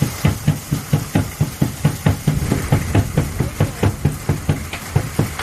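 Korean traditional drum struck in a steady, fast rhythm, about four to five low beats a second, over a continuous hiss of rain.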